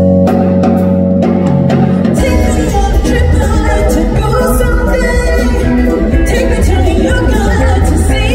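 Live band music with a woman singing: a held chord for about the first two seconds, then drums and the full band come in.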